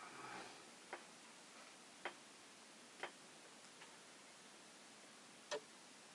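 Near silence in a quiet room, broken by four short, sharp clicks at uneven intervals, the loudest near the end.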